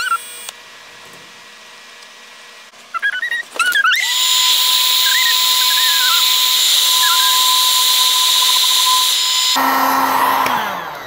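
Heat gun switched on about four seconds in, its fan blowing steadily with a thin whine over the rush of air, aimed at freshly soldered wire joints. It is switched off near the end, and the motor's hum falls in pitch as it spins down.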